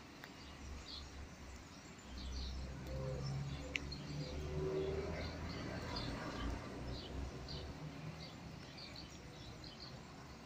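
Small birds chirping again and again over a low outdoor rumble, with one sharp tick about four seconds in.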